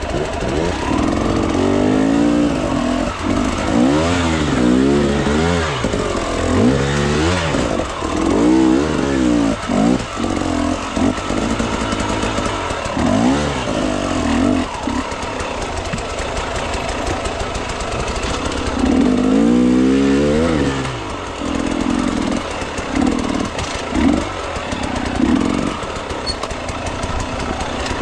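Dirt bike engine revved up and down over and over in short rises and falls as the bike picks its way over a rocky trail, with one longer rev about two-thirds of the way in and a few quick throttle blips near the end.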